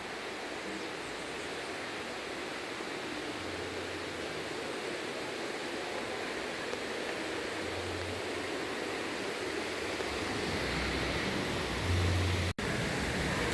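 Steady rushing of a waterfall, water falling without a break, with a momentary dropout about a second before the end.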